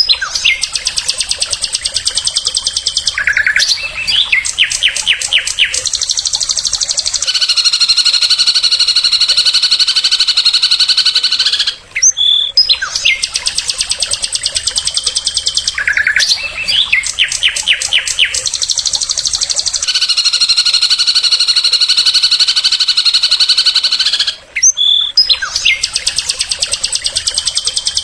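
A songbird singing rapid, high, buzzy trills broken by short runs of separate notes. The same passage repeats about every twelve seconds, as in a looped recording.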